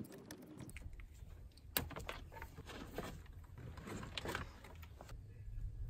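Adhesive tape being pulled off the roll and wrapped around a car wiring harness: a series of short crackles and clicks, the sharpest about two seconds in and another cluster near four seconds.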